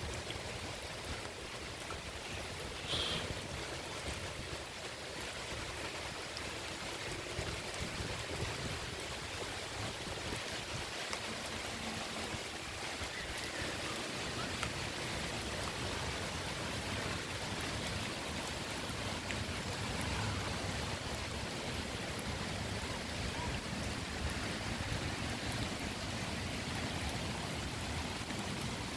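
Steady rain falling on wet grass and a flooded paved path, with one short high sound about three seconds in.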